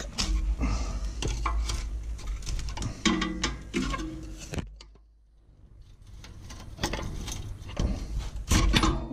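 Metal clinks, knocks and scraping as a stuck rear disc brake caliper and its pads on a Toyota Prado are worked loose from the rotor. The sound stops in a brief quiet pause about five seconds in, then the knocks resume.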